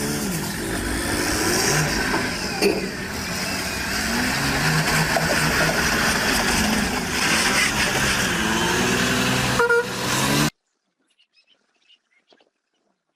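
Loud road-vehicle noise, engines rising and falling in pitch, with a vehicle horn sounding. It cuts off abruptly about ten seconds in, leaving only faint ticks.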